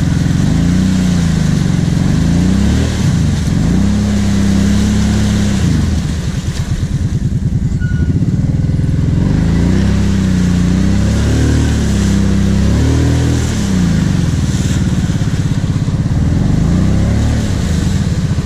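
Kawasaki KVF 750 Brute Force ATV's V-twin engine revving up and down in repeated surges as the quad pushes through a deep, water-filled mud trench, with water churning around it.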